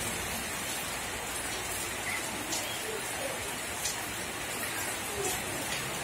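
Steady, even hiss of background noise with a few faint ticks scattered through it.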